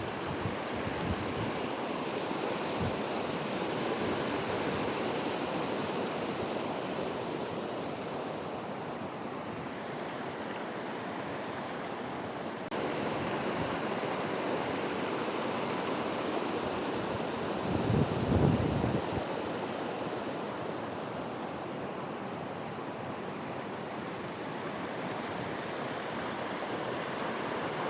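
Steady rushing of a mountain stream, with a short low rumble of wind buffeting the microphone about 18 seconds in.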